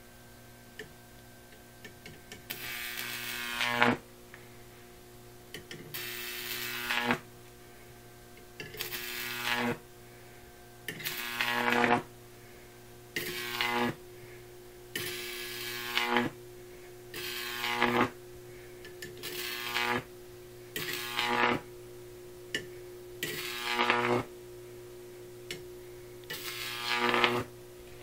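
Jacob's ladder powered by a microwave oven transformer: a buzzing high-voltage arc struck about every two seconds, eleven times in all. Each arc grows louder for a second or so and then cuts off suddenly, over a steady transformer hum. The arcs are started by hand because the roughly 2 kV output cannot jump the gap on its own.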